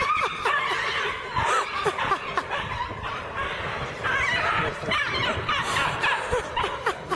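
Several people laughing, snickering and chuckling over one another, steady throughout with a short lull a little past the middle.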